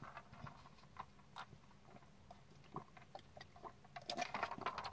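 Faint scattered clicks and small handling noises, then a person sipping a drink from a foam cup near the end.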